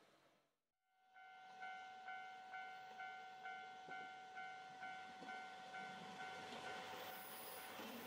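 Japanese railway level-crossing warning bell sounding its repeated electronic "kan-kan", about two strikes a second, starting about a second in. Near the end the strikes fade under the rising noise of an approaching train.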